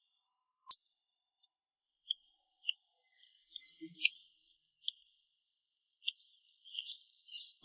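Sharp, irregular clicks, about a dozen, of a picking tool snipping wild Sichuan pepper clusters off thorny branches, over a faint high chirring of insects.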